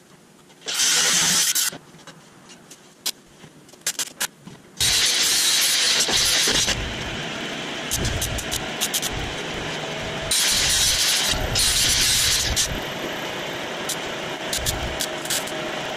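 Metal fabrication noise. A loud hissing burst about a second in is followed by scattered clicks and taps. From about five seconds in, an engine-driven welding machine runs steadily with a pulsing rumble, while a stick-welding arc crackles and hisses in spells.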